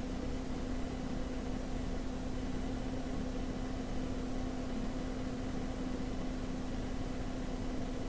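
Steady low hum over an even hiss: unchanging room tone, with no distinct clicks from the hand work.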